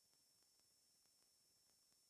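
Near silence: no audible sound.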